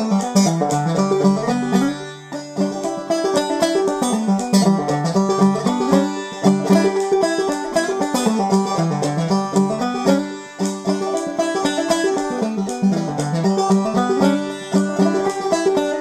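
Five-string banjo played clawhammer style in standard G tuning: a steady, rhythmic old-time melody of plucked notes over a ringing drone.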